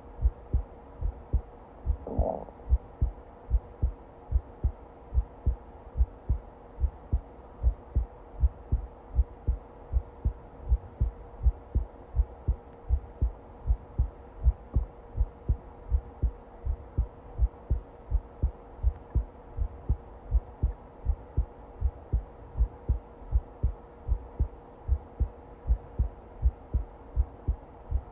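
Human heartbeat: steady, evenly spaced low thumps, over a faint steady hum. A brief noise is heard about two seconds in.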